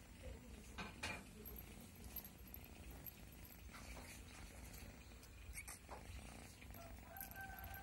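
Kitten purring faintly as it is stroked, a steady low rumble with a few soft clicks of handling.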